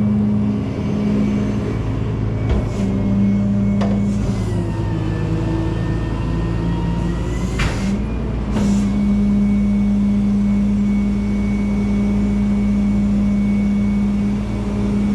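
Rollback tow truck's engine and hydraulic pump running steadily while the flatbed is tilted up and run back. The hum's pitch sags for a few seconds in the middle, and there are several sharp clunks: about two and a half seconds in, around four seconds, and twice more between seven and nine seconds.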